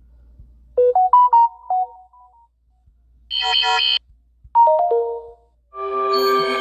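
Samsung Galaxy A71 5G preset alert tones played one after another. There is a quick run of synth notes about a second in, a brighter chime around three seconds, and a short falling figure near five seconds. A longer sustained chord starts near the end. Faint clicks come just before some of the tones.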